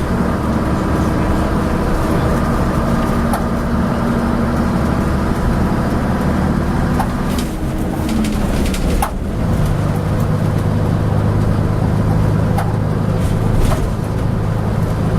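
Leyland Atlantean double-decker bus's diesel engine pulling, its note rising gently. About eight seconds in the note drops away with a couple of knocks, as at a gear change, and the engine then runs on at a steady, lower drone. Occasional sharp clanks from the bus are heard over the engine.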